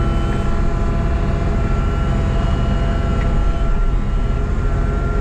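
Excavator's diesel engine running steadily under the operator, with a few high, even tones held over it.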